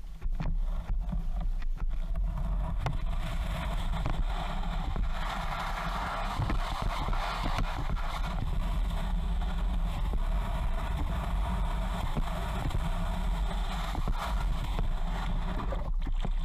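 Water rushing and splashing along the hull of a QK Tasman Express sea kayak under way, with wind rumbling on the action-camera microphone. The rushing swells louder between about five and nine seconds in.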